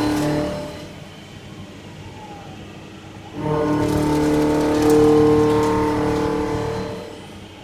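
CNC machine's motors whining with several steady tones during a machining pass. The whine drops to a low hum about a second in, starts up again loudly a little past the halfway point, and falls away again near the end.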